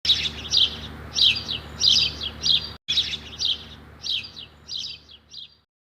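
Small white cage birds chirping: short clusters of high, quick notes repeated about every half second or so, over a faint steady low hum.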